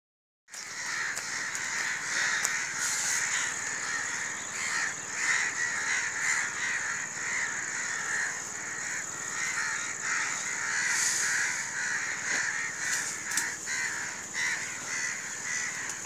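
A flock of crows cawing continuously, many overlapping calls. A steady high-pitched buzz runs underneath.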